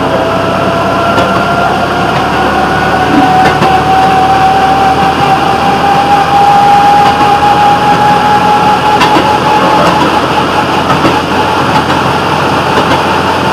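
Railroad motorcar (speeder) running along the track: a steady mix of engine and wheel-on-rail noise with a whine that slowly rises in pitch.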